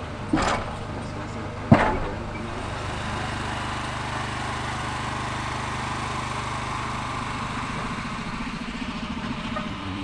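A passenger boat on a wheeled steel cradle being hauled along rails down a boat-railway incline: two sharp metallic clanks in the first two seconds, then a steady low mechanical rumble.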